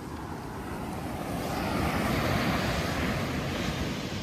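Ocean surf breaking on a sandy beach, the wash building about a second in and easing slightly toward the end.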